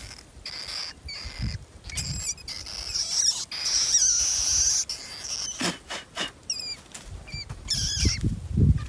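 Live rats squeaking and squealing in short, high, hooked chirps as they are shaken out of a wire trap into a holding cage. Under them the wire cages rattle and knock as they are handled.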